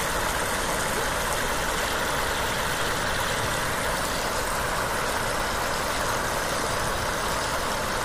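Floodwater rushing steadily across a road, a constant even roar of flowing water.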